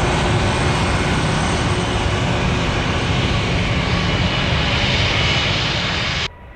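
Jet airliner engines running at power, loud and steady, with a high whine over the noise. The sound cuts off abruptly near the end.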